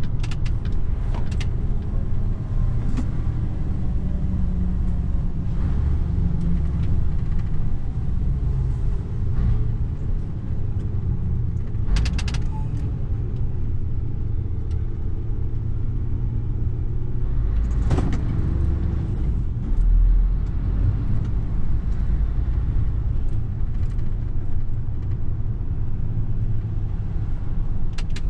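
Mercedes Actros truck heard from inside the cab while driving: a steady low drone of diesel engine and road rumble. There are a couple of sharp knocks or rattles, about 12 and 18 seconds in.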